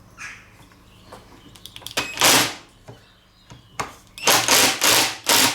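Four short bursts of a cordless impact driver hammering, with its seized bit clamped in a vise: the impacts are being used to rattle the jammed bit free of the anvil sleeve.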